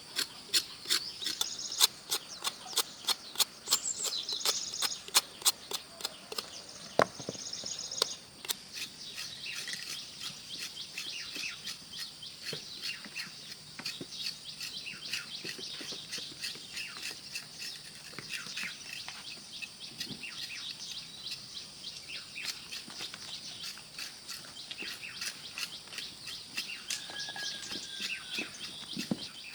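Birds chirping and calling in a rural background, with a quick run of sharp clicks or taps, about two to three a second, through the first eight seconds or so.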